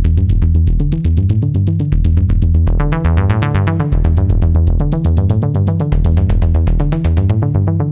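u-he Zebra 2 software synthesizer playing a preset as an electronic, techno-like sequence: a fast steady pulse over a heavy bass line. About three seconds in a brighter layer comes in, and near the end the top end drops out briefly.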